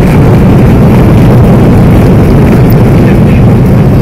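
Jet airliner's wing-mounted engine and the rumble of the landing roll, heard from inside the cabin: a loud, steady, deep noise with no breaks.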